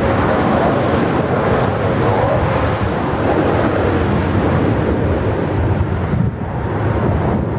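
Jet airliner's engines: a loud, steady rush of jet noise that eases slightly near the end.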